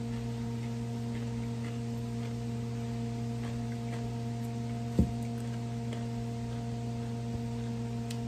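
Steady electrical hum, with one short, low knock about five seconds in.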